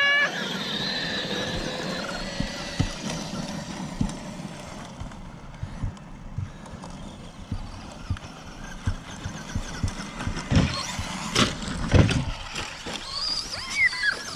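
Electric Traxxas RC truck running: its motor whine holds steady and fades over the first couple of seconds, then gives way to a rushing noise with scattered knocks. A few louder thumps come about ten to twelve seconds in, and a short falling whine near the end.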